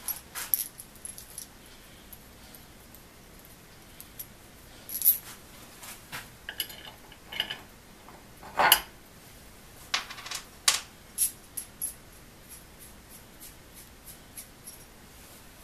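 Irregular light metallic clinks and clatters of tools and hardware being handled on a workbench, some with a brief ring. The loudest knocks come about five, nine and eleven seconds in.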